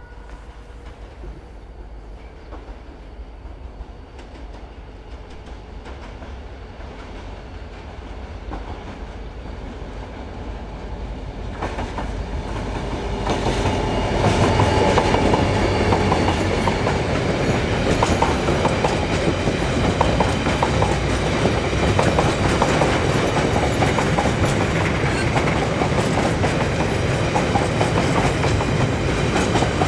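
Irish Rail 071 class diesel locomotive, with its EMD 645 V12 two-stroke engine, approaching and growing steadily louder, then passing close by about halfway through. After it, laden steel wagons roll past with a steady clickety-clack of wheels over the rail joints.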